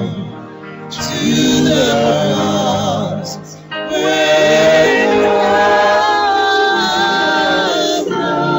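Gospel worship song: voices singing long held notes. There is a short lull about half a second in and a brief break near the middle.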